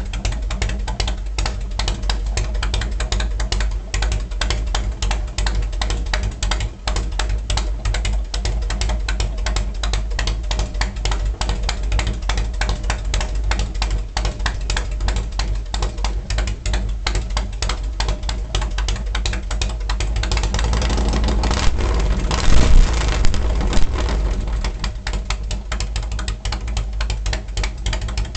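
Harley-Davidson 1450 cc V-twin, fitted with an S&S gear-drive cam kit and S&S carburettor, running at idle through fishtail exhausts with a rapid, lumpy beat. About three quarters of the way through it is revved up once and drops back to idle.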